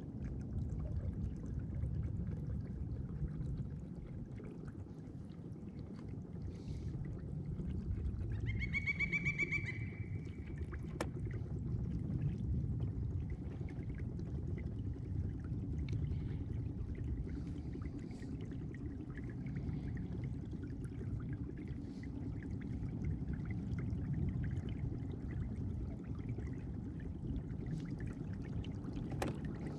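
Water rushing and trickling along a kayak's hull as it moves under an electric trolling motor, a steady low wash. About nine seconds in comes a short, high chirp with overtones.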